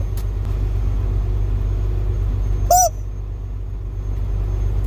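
Steady low rumble of an idling engine. About halfway through comes one short high whine from a dog, rising and falling in pitch.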